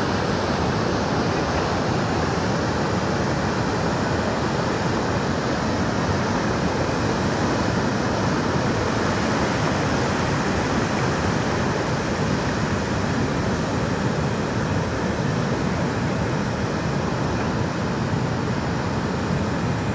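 Flash-flood torrent of muddy, debris-laden water rushing down a steep channel, a loud, steady rushing noise with no let-up.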